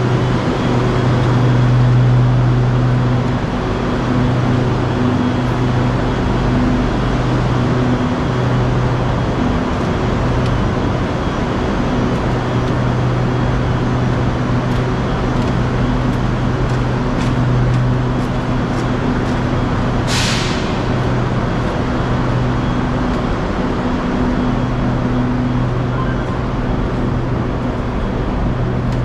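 SRT Red Line electric commuter train with a steady electrical and mechanical hum. About two-thirds of the way through comes one short, sharp hiss of released air.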